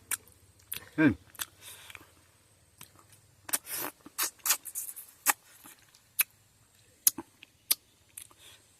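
A person eating: scattered wet mouth clicks and smacks of chewing, with a short hummed "mm" about a second in.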